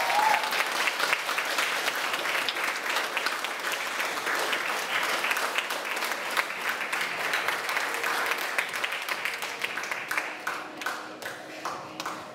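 Wedding guests applauding, a dense patter of clapping that thins out to scattered separate claps near the end.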